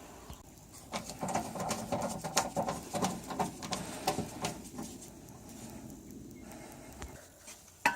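Hands working on the metal parts of an air conditioner's blower unit: scattered light clicks, knocks and rustling, busiest in the first half and thinning out after about five seconds.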